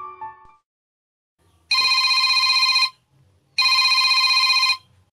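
Telephone ringing twice, two loud rings of a little over a second each with a short pause between them.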